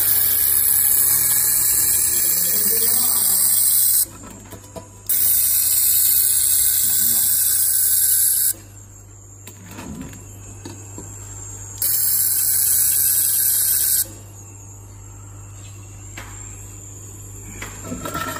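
Hand-held fiber laser welder firing on stainless steel in three bursts of loud high hiss, each switching on and off abruptly, about four, three and a half, and two seconds long. A steady low hum runs underneath.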